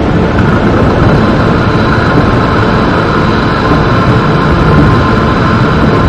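Loud, steady rumbling drone like a heavy engine or jet, with faint high tones held over it: a layered sound-effect texture in an experimental electronic composition.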